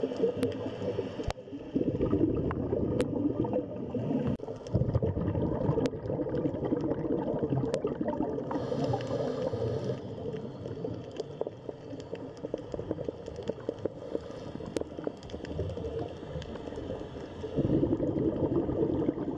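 Water bubbling and gurgling, heard as underwater ambience: a continuous low churning with scattered faint clicks, easing a little in the middle and swelling again near the end.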